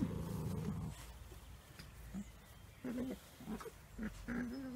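Cavalier King Charles Spaniel puppies making a run of short, low whimpers and grunts in the second half.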